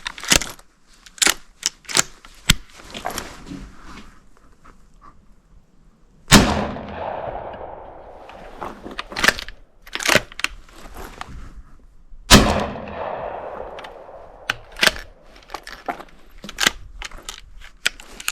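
Two shotgun shots from a Stevens Model 124 firing 1 3/4-inch Aguila mini shells, about six seconds apart, each with a long echoing tail. Between and around them come sharp metallic clacks of the bolt being worked to feed the short shells.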